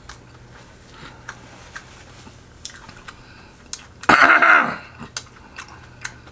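Close-up mouth sounds of eating: scattered small wet clicks and smacks of chewing. About four seconds in comes one short, loud, breathy wordless vocal sound whose pitch falls away.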